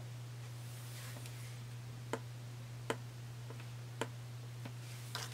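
A stylus tapping on a tablet touchscreen: a handful of short, sharp, irregularly spaced taps as figures are entered in a budget spreadsheet. A steady low hum runs underneath.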